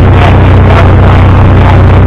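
Engine running steadily at close range, loud, with a deep even hum.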